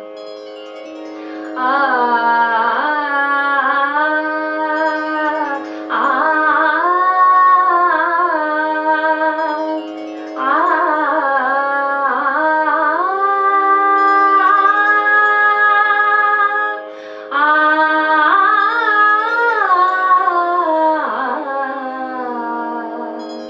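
A woman singing a wordless opening alap in raag Des, four long phrases with gliding ornaments and short pauses for breath between them. Under the voice runs a steady drone.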